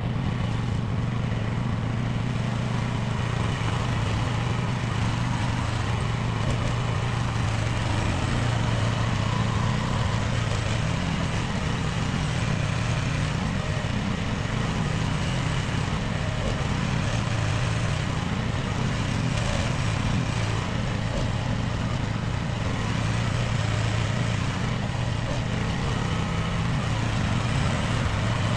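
Small mini excavator engine running steadily under work, a continuous low drone with the pitch and level shifting slightly as it works.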